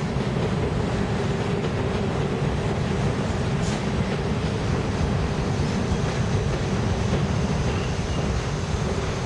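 An R62A subway train pulling into an elevated station and slowing alongside the platform: a steady rumble of wheels on the track with a constant low whine.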